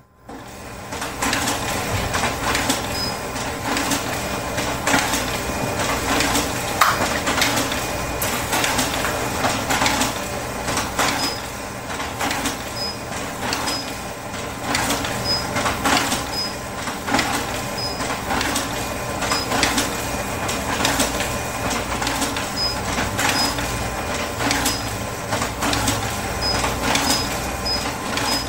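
Office background: a steady machine hum with frequent clicking and clattering, and short high beeps now and then.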